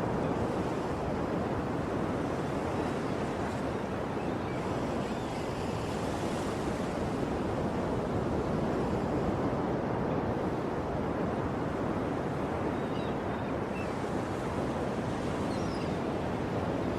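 Ocean surf: waves washing in continuously, swelling and easing gently, with a few faint high chirps over the top.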